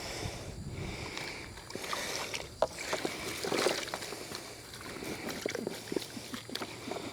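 Water splashing and sloshing with irregular small knocks and rattles, as a cast net is worked in the shallows for mullet.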